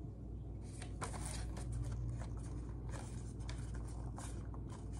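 Light plastic clicks, knocks and scrapes of a toy MP5 gel blaster being handled and its parts worked, coming irregularly, over a low steady hum.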